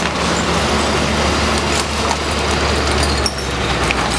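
Heavy diesel engine of a police water cannon truck running as it drives past close by, a steady low hum that drops away about three seconds in.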